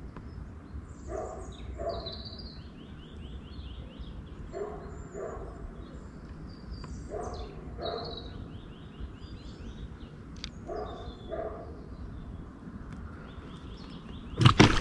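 A dog barking in pairs, two barks about half a second apart, repeated every few seconds, with small birds chirping and trilling over it. A sudden loud burst of noise cuts in at the very end.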